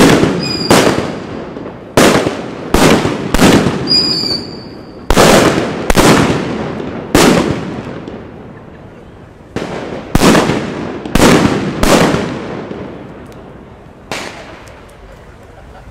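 A run of firecrackers going off: about a dozen loud, sharp bangs at uneven intervals, each trailing off in an echo, fewer toward the end. A short high whistle sounds about four seconds in.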